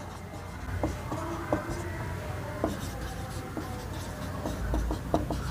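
Dry-erase marker writing on a whiteboard: an irregular run of short squeaks and scratches as each letter is stroked out.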